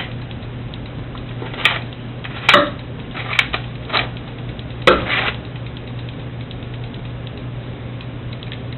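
Several sharp metallic clinks and knocks, six or so in the first five seconds, from tools and workpiece pieces being handled and set down on a workbench, then only a steady low hum.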